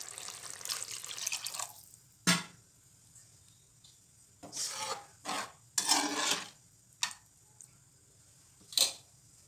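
Water being poured into a pan of masala gravy: a running pour for the first couple of seconds, then several short splashes, with two sharp clicks of metal in between.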